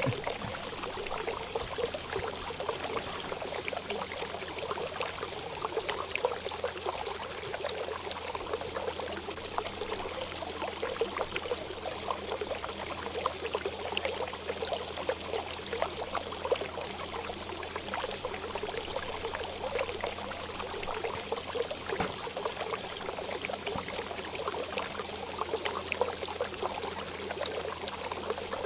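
Steady running water, a continuous trickling and splashing like a small stream or fountain, with a faint low hum underneath.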